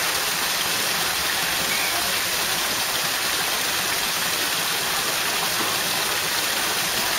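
Steady rushing of running water, an even unbroken hiss.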